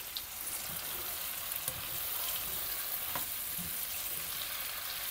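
Fried chicken pieces and chili sambal sizzling steadily in a wok as a little water is added, with a wooden spatula stirring through them and giving a few faint taps.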